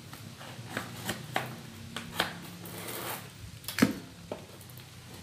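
Thin metal plant pot being cut and pried open by hand: scattered irregular clicks, scrapes and knocks of tool on metal, with the sharpest knock a little before four seconds in.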